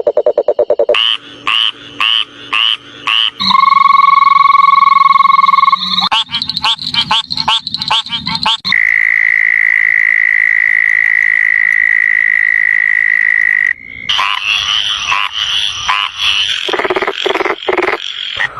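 A run of different frog calls, one after another. First a few separate high croaks about half a second apart, then a steady buzzing trill lasting a couple of seconds, then a fast series of repeated notes. A long, even high-pitched trill follows, about five seconds long, and near the end a dense chorus of many frogs calling together.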